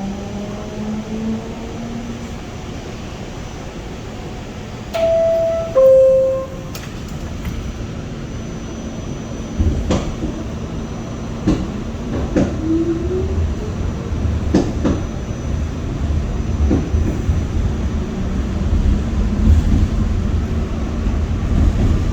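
New York City subway car on the A train: a loud two-note door chime, high then lower, about five seconds in, then the train running with a steady low rumble, sharp clacks of the wheels over the rails and a short rising motor whine.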